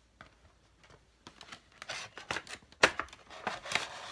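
A Funko Pop's cardboard box being opened and the figure pulled out of its packaging: a run of rustling, scraping and crinkling that starts about a second in, with one sharp click near the three-second mark.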